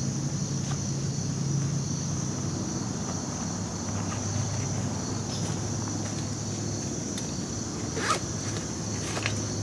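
Steady high-pitched chorus of insects, with faint handling ticks and a brief rustle near the end as a backpack is handled.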